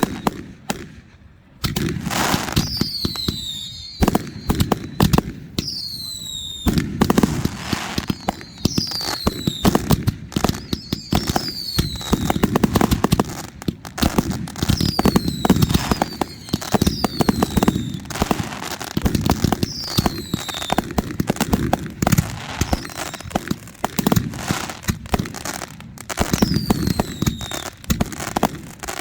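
Consumer fireworks going off continuously: a dense run of sharp pops and crackling, with short whistles falling in pitch every second or two, starting after a brief lull.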